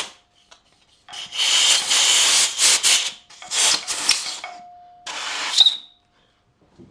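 Aerosol contact cleaner sprayed in three hissing bursts, the first about two seconds long and two shorter ones after, to clean out the threaded holes before thread inserts go in.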